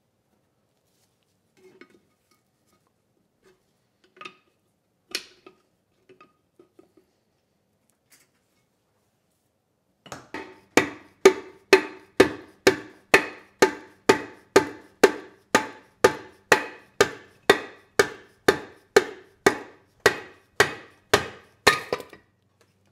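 A few light clinks of parts being handled, then about ten seconds in a steady run of hammer blows, about two a second, each with a short metallic ring. The blows drive the crankshaft out of the Subaru EX30 engine's crankcase.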